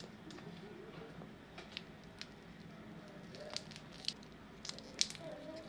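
Foil wrapper on a lollipop crinkling as it is handled, with sharp clicks of scissors snipping at the foil in the second half.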